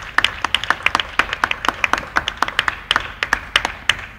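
Scattered applause from a small audience, the separate hand claps distinct, cutting off suddenly at the end.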